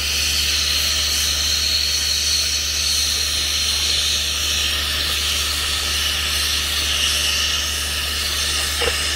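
Brazing torch flame hissing steadily as it heats the copper refrigerant line joints of an AC condenser coil.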